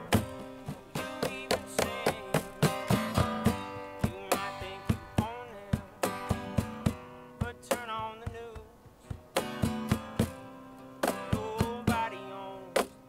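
Acoustic guitar strummed in a blues song, with a cajon slapped in a steady beat of sharp hits and a wavering melody line riding over them.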